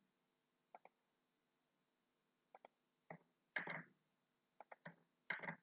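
Faint computer mouse and keyboard clicks: several come in quick pairs, with a few slightly fuller soft taps among them.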